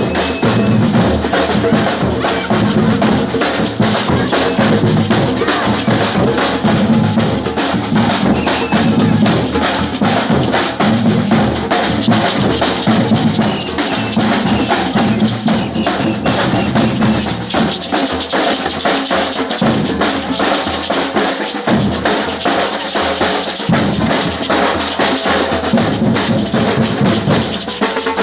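Batucada samba percussion ensemble playing: dense, rapid snare and high-drum strokes over deep surdo bass-drum beats about once a second. The deep drums drop out for stretches in the second half while the higher drums keep going.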